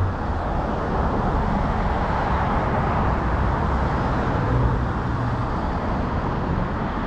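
Steady road-traffic noise, a continuous rumble and hiss of passing vehicles with no single event standing out.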